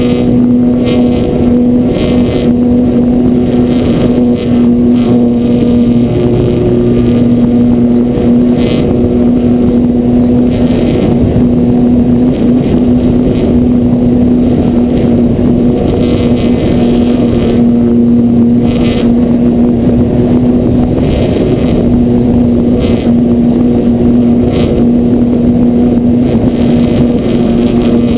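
An E-flite Apprentice 15e RC plane's brushless electric motor and propeller, heard close up from on board: a loud, steady motor whine with the rush of propeller wash and airflow, its pitch shifting only slightly.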